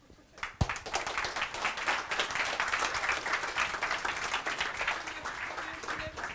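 Audience applauding, starting about half a second in.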